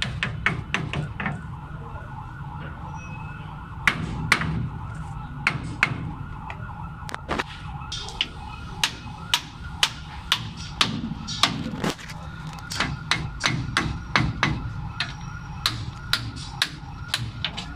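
Hammer blows on the steel steering knuckle and kingpin of a Bedford truck's front axle: a quick run of strikes at first, then scattered single knocks. A steady wavering tone and a low hum run underneath.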